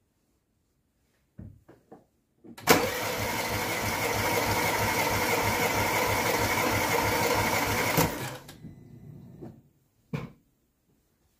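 Starter motor cranking a small four-cylinder petrol engine with its spark plugs out, as for a compression test: a loud, steady whir with an even pulsing beat from the cylinders. It starts about two and a half seconds in, runs for about five seconds and stops suddenly, after a few light clicks.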